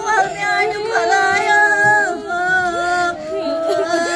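A woman's voice in long, drawn-out sung notes that slide at their ends, with other voices faintly behind.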